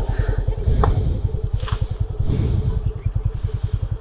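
Motorcycle engine idling, an even, fast low beat of about a dozen pulses a second.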